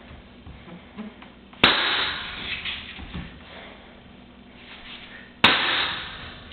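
Nail gun firing twice into hardwood floor boards, two sharp loud shots about four seconds apart, each with a short fading tail.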